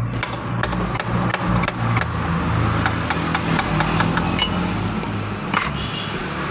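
Repeated light taps and clinks of metal tools on motorcycle parts, irregular and several a second, over background music.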